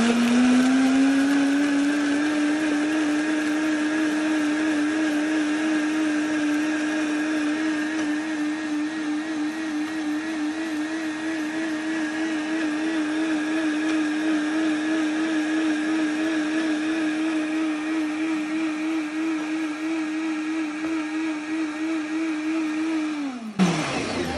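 High-speed countertop blender blending frozen strawberries with cooked millet. The motor spins up to a steady whine over the first couple of seconds, runs evenly, then winds down with falling pitch and stops about a second before the end.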